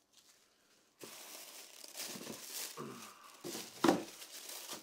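Tissue paper wrapping crinkling and rustling as it is lifted and pulled out of a shoebox, starting about a second in, with a sharper crackle just before the end.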